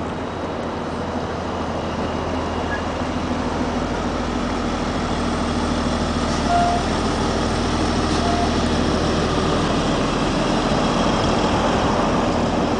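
Rear-mounted diesel engine of a 35-foot motorcoach running as the coach pulls away and drives past. It is a steady low drone that grows gradually louder as the rear of the coach comes by.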